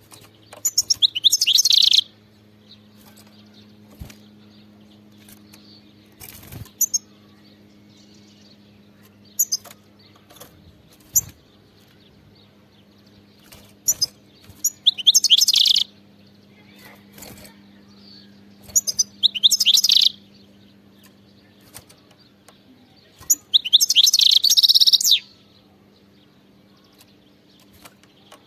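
European goldfinch singing: four bursts of rapid, high twittering song, each one to two seconds long, with scattered short chirps and clicks between them. A faint steady low hum underlies it.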